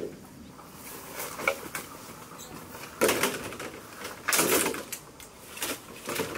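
Long green bamboo poles being handled and laid on a pile, scraping and knocking against one another in several short bursts, the longest about four seconds in.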